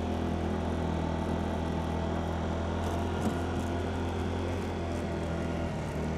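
Small 50 cc engine of a Geely automatic moped running at a steady pitch as the scooter pulls away and rides off.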